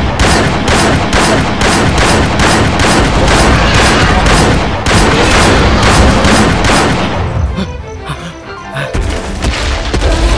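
Rapid gunfire from handguns, about four shots a second, over action background music; the shooting stops about seven seconds in.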